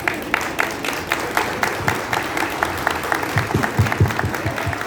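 Audience applauding, the claps falling in a fairly steady beat of about four a second, with low thumps joining about three seconds in.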